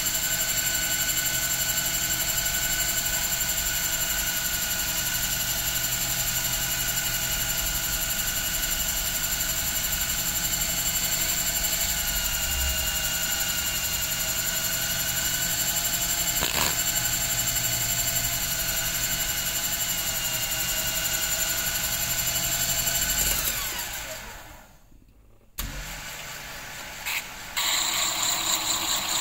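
Small cue-repair lathe motor running with a steady whine, then spinning down about 23 seconds in, its pitch falling to near quiet. Near the end it runs again as sandpaper rubs the spinning layered leather cue tip.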